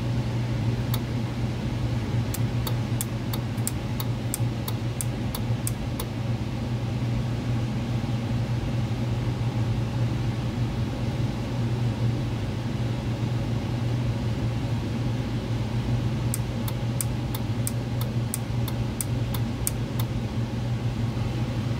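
ClimateMaster heat pump unit running with a steady low mechanical hum. Two runs of light, quick ticks, about three a second, come in a couple of seconds in and again near the end.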